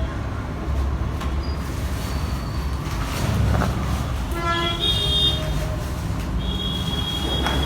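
Steady low rumble of background road traffic, with a horn sounding briefly about halfway through and again near the end.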